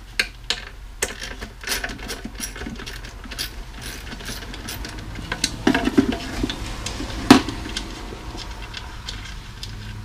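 Scattered clicks, scrapes and knocks of hands working on a tom drum shell and its hardware during dismantling and cleaning, with one sharp knock a little past the middle.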